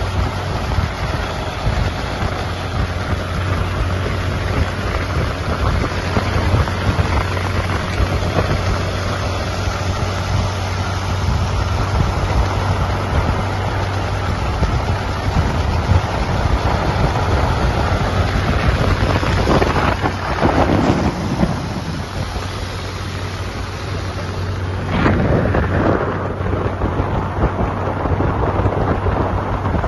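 Motorcycle at road speed: the engine runs steadily under heavy wind noise on the microphone. The sound swells briefly twice, about two-thirds of the way through and again near the end.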